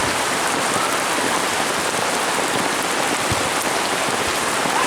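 Heavy rain falling steadily in a downpour, a dense even hiss.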